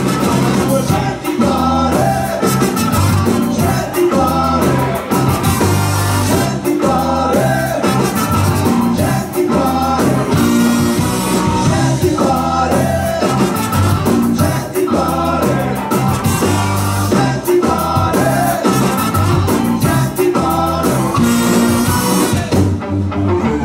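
Live ska band playing: trumpet and saxophone over electric guitar, bass, keyboard and drums, with a steady off-beat rhythm.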